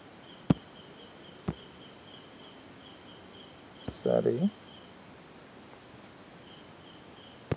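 Crickets chirping steadily in the background as a high, pulsing trill. A couple of sharp clicks come in the first two seconds, another near the end, and a brief vocal sound about four seconds in.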